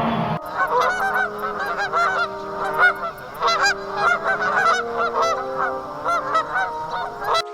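A flock of waterfowl calling: many short honking calls, each rising and falling in pitch, overlapping densely. The calls begin suddenly about half a second in.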